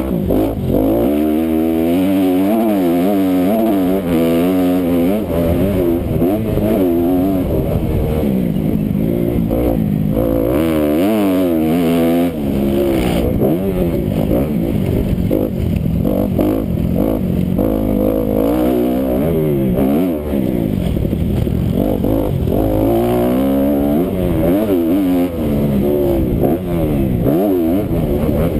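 Honda motocross bike's engine heard from on board while being ridden hard around a dirt track. It revs up and drops back over and over, rising on the throttle and falling off between, with wind and track noise under it.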